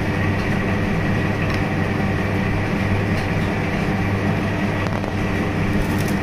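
Steady machine hum, most likely the ice cream machine's motor and refrigeration running: a low drone with a faint, steady high whine.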